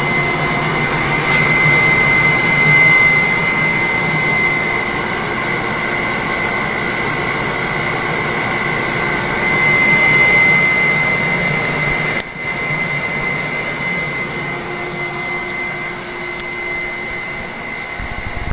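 Yamamoto DO-160FLK dryer running: a steady rush of fan and motor noise with a constant high whine throughout, and a brief dip about twelve seconds in.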